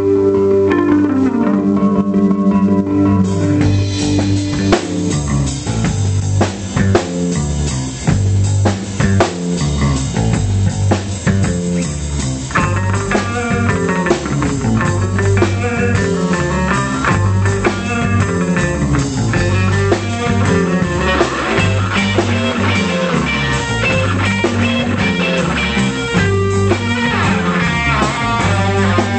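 Live instrumental rock band playing: electric guitar lead over bass guitar. A guitar line slides down in pitch near the start, and drums come in about three seconds in.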